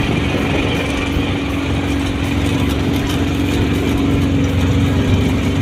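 A vehicle's engine running steadily while driving, heard from inside the cabin, with a constant hum over low rumble.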